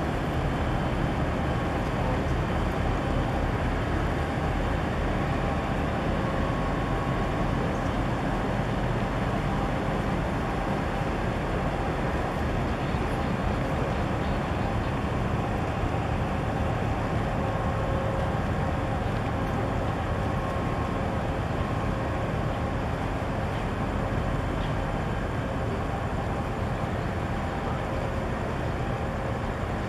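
Steady low rumble and hum of the ONE Millau container ship's engines and machinery as the vessel moves slowly past, even throughout with a few faint steady tones.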